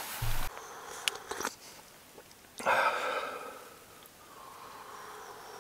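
A man sipping hot coffee from an enamel mug, with one short, sudden slurp about two and a half seconds in that fades over about a second. There are a couple of light knocks from handling the mug before it.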